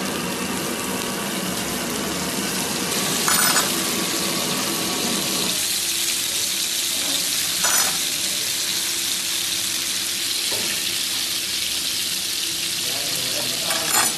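Butter sizzling hot in clay güveç dishes, with pieces of meat frying in it: a steady hiss. Three short sharp clicks cut through it, about three seconds in, just past halfway, and near the end.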